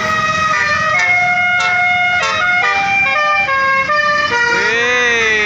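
Bus 'telolet' musical horn playing a tune of stepped, held notes, loud over road noise. Near the end the tone changes to a siren-like wail that rises and falls.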